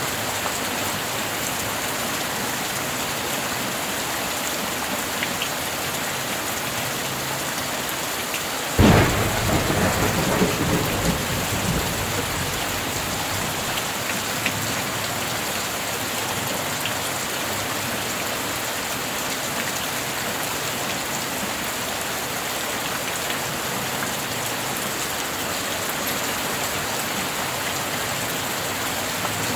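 Steady heavy rain falling. About nine seconds in, a sudden close thunderclap cracks and rumbles away over roughly three seconds.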